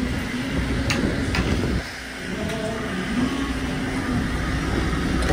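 Steady rumble of a longline fishing boat's engine and deck machinery, with a few sharp clicks about a second in and again around two and a half seconds.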